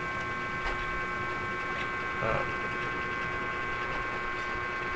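Steady electrical hum with several constant high-pitched tones, the background of a computer recording setup, with a couple of faint clicks.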